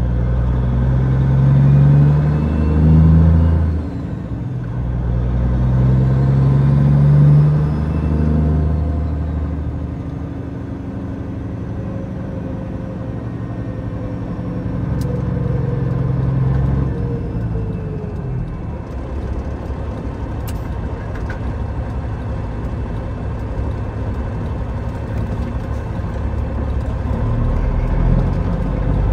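Peterbilt 379's CAT 3406E inline-six diesel pulling under load. The engine note rises, drops at a shift about four seconds in, and climbs again, then settles into a steady drone with road noise.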